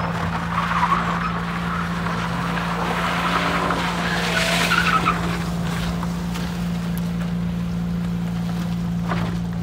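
Rear-wheel-drive Subaru Impreza rally car sliding on a loose dirt surface: its engine is running hard while the tyres scrabble and throw gravel, loudest about four to five seconds in.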